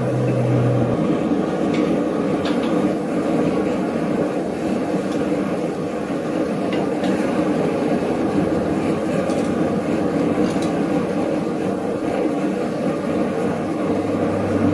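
Steady, loud drone of running forge-shop equipment, with a few faint metal clicks from the tongs and hook.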